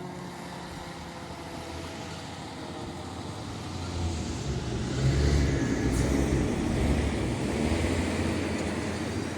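Pierce Impel fire engine driving past, its engine and tyres making a rumble that swells about four seconds in and stays loud. At the start, the faint tail of its Q2b mechanical siren winds down in pitch.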